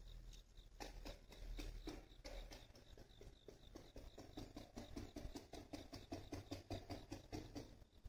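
Handling noise from about a second in: a quick, irregular run of faint clicks and rustles, several a second.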